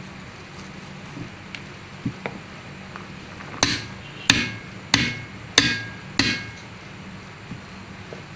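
Copper-headed hammer striking five times, evenly about two-thirds of a second apart, each blow with a short metallic ring: tapping a part home in the bore of a Komatsu SAA6D140E-5 engine water pump housing.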